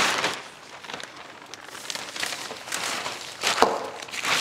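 Spray paint hissing out in several short bursts as a plate is painted, with a sharp click a little after three seconds in.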